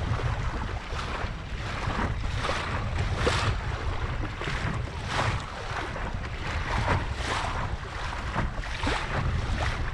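Water rushing and splashing along the hull of a Laser Pico sailing dinghy under way, with wavelets slapping in repeated surges about once or twice a second. Wind rumbles on the microphone underneath.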